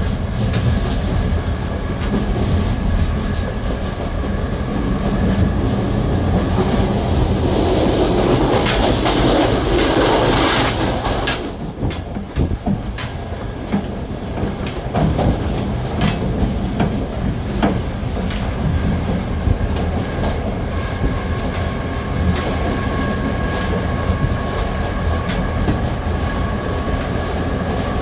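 Series 2100 electric multiple unit running on the rails, with a steady low rumble and two high whining tones. A louder rush of noise swells about seven to eleven seconds in. Then the level dips and the whine stops, leaving wheels clicking over rail joints. The whine comes back near the end.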